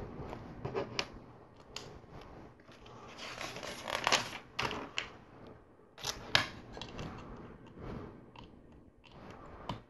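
Plastic LEGO pieces being handled and pressed together: irregular small clicks and snaps as tiles are pushed onto a plate, with light rustling of the pieces in the hands.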